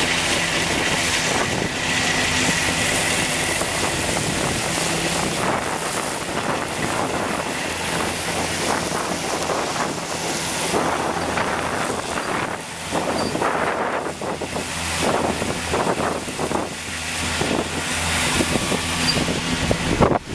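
Fendt 724 Vario tractor's six-cylinder diesel running steadily under load while its Krone EasyCut disc mowers cut grass. Wind buffets the microphone in gusts, mostly in the second half.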